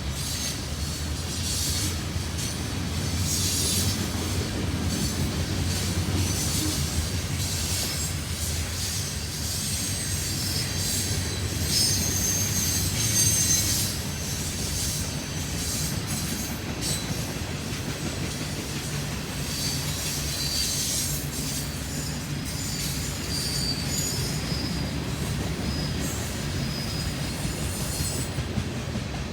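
Train rolling past: a steady low rumble of railcars on the track, with steel wheels squealing against the rails off and on throughout.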